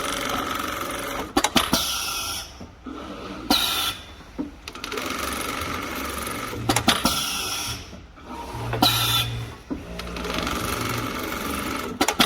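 Computer-controlled pattern sewing machine stitching in runs of one to two seconds, broken by sharp clicks and brief pauses as it stops and starts again along the pattern. Its running is not noisy.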